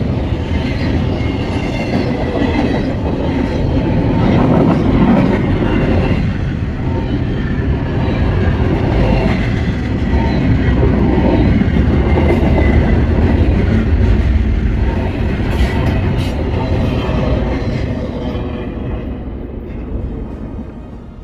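A Norfolk Southern freight train rolling past, with a steady rumble and rattle of steel wheels on the rails. The sound fades away over the last few seconds.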